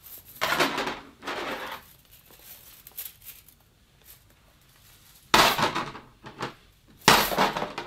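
Metal flow-ring fidget toy clinking and rattling as its thin rings are stretched and collapsed between the hands, with two louder, sharp-starting clatters a little after five and seven seconds in.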